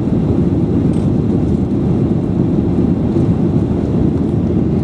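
Steady low cabin roar inside a Boeing 737-800 in flight: engine and airflow noise heard from the passenger cabin.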